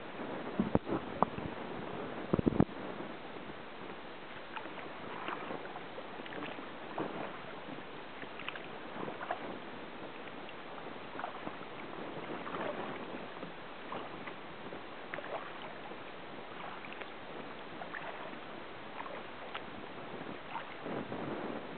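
Kayak paddle strokes: the blades dip and swish through calm water in a steady rhythm, about one stroke a second or a little slower. A few sharp knocks come in the first few seconds and are the loudest sounds.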